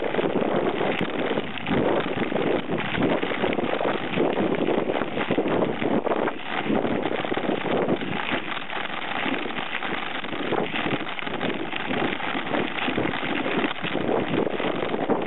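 Mountain bike rolling over a dirt and gravel track: a continuous rough noise of tyres and rattling bike parts, broken by many small irregular knocks, with wind buffeting the microphone.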